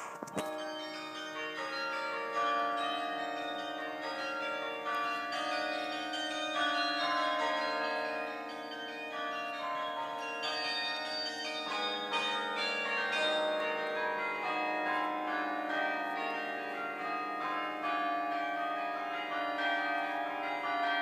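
Bok Tower's carillon playing: bronze tower bells struck one after another in a tune, each note ringing on and overlapping the next.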